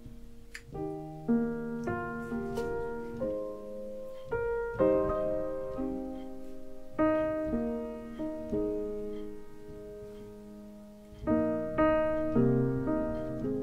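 Background piano music: gentle chords struck one after another and left to fade.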